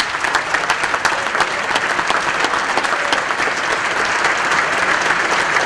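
Audience applauding, steady dense clapping.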